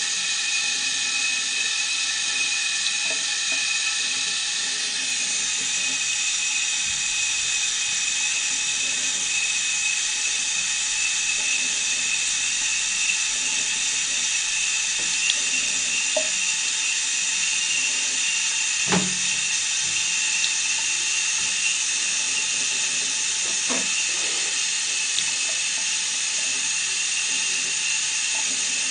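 Thin stream of tap water running steadily into a ceramic bathroom sink, a hiss that grows brighter about five seconds in. A few faint knocks and clicks come as a Maine Coon cat laps from the stream, the clearest about two-thirds through.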